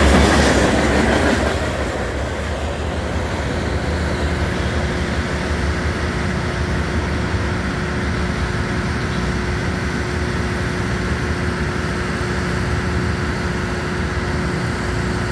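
Freight train's last hopper cars clattering past, loudest in the first second or so, then a steady lower rumble with a faint hum as the end of the train moves away.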